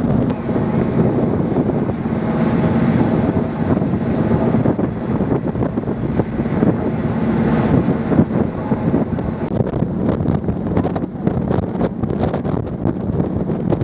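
Wind buffeting the microphone on a cross-Channel ferry, gusting and crackling more in the second half, over the steady low hum of the ship's engines and the rush of the sea.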